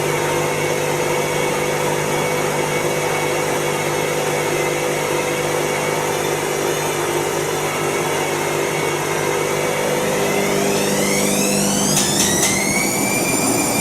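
Hotpoint washing machine running with a steady mechanical hum; about ten seconds in, its motor whine rises in pitch and then levels off, with a couple of brief clicks partway through the rise.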